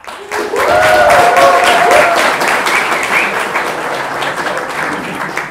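Audience applauding in a hall, with a few cheering voices in the first two seconds. The applause is loudest early and fades toward the end.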